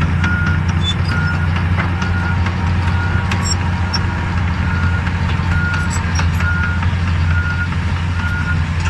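Bulldozer's diesel engine running steadily under load, with its reverse alarm beeping about once every three-quarters of a second as the machine backs up. Faint clanks and clicks sound over it.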